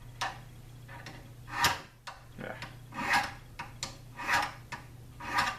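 Hand file rasping across a cast brass trigger guard in five slow strokes, about one every second and a half, filing down a high spot left from the casting.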